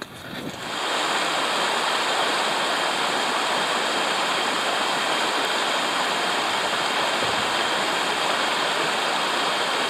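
A fast-flowing hill stream rushing and splashing over rocks and small cascades: a steady rushing noise that comes in about a second in.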